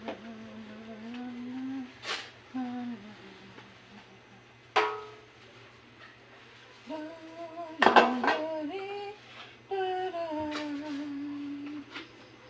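A woman humming a slow tune in long held notes, with a few sharp clinks of dishes between phrases.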